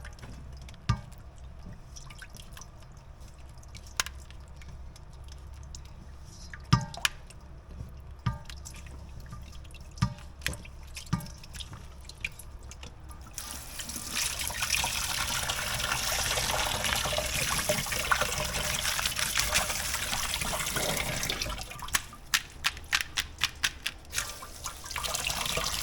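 Kitchen tap running into a sink while sago worms are rinsed, with scattered knocks and clatter of handling. The water runs steadily for about eight seconds from around the middle, stops amid a quick run of clicks, and runs again near the end.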